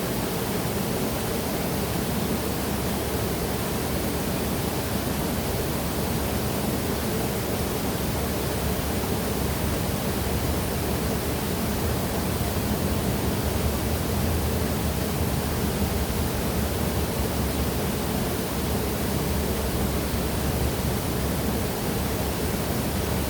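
Waterfall rushing steadily: a constant, even roar of falling water with no breaks.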